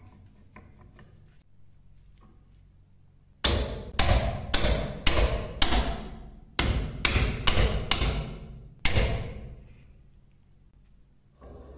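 Hammer blows on a rusty knife clamped in a vise, knocking the old wooden handle off the tang. About ten sharp strikes, each ringing briefly: a quick run of five, a short pause, four more, then one last blow.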